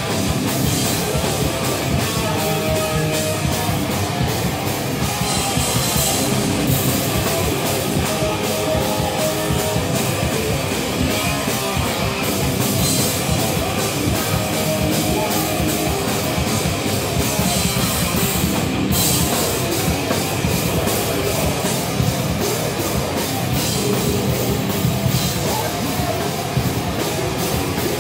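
A live heavy rock band playing loud and steady: distorted electric guitars over a pounding drum kit.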